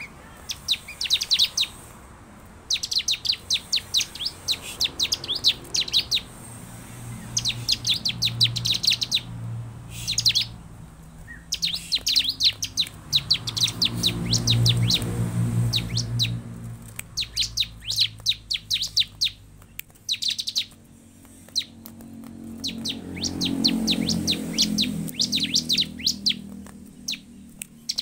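Bar-winged prinia (ciblek) calling in repeated bursts of rapid, sharp, high chirps, each burst a second or two long with short pauses between. A low rumble rises and fades twice in the background.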